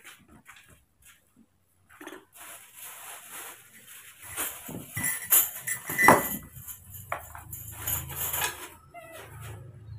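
Baby monkeys handling and knocking a metal spoon and small plastic things, a busy run of clatters and scrapes with one sharp knock about six seconds in.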